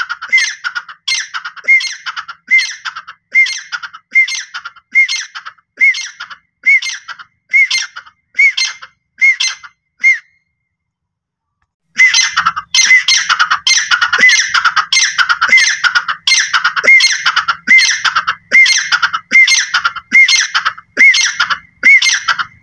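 Grey francolin (teetar) giving its loud, ringing call, repeated over and over at about one and a half calls a second. The calling stops for nearly two seconds of dead silence about ten seconds in. It then starts again faster and more continuous.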